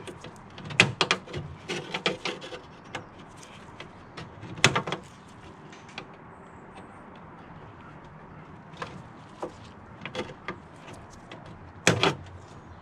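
Hand tools working a failed rivet out of the bonnet-catch mounting on the car's steel front panel, a screwdriver and needle-nose pliers clicking and scraping on metal. Irregular sharp clicks and clatters, with a loud one about five seconds in and a cluster near the end.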